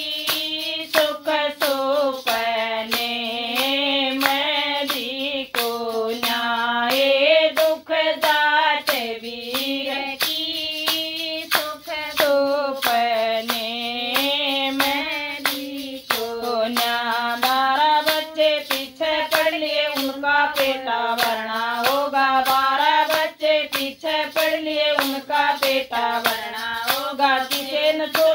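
A woman singing a Haryanvi folk song in a single voice, kept in time by a steady beat of sharp handclaps.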